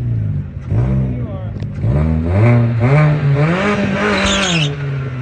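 Chevrolet Cruze's four-cylinder engine revved in short blips, then held higher for about two and a half seconds during a burnout attempt, with a brief hiss near the end before the revs drop.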